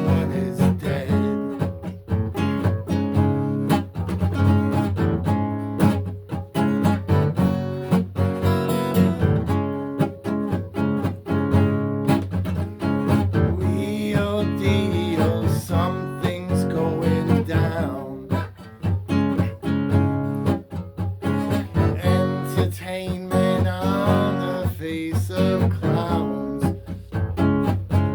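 Acoustic guitar music, with notes plucked and strummed in a continuous passage.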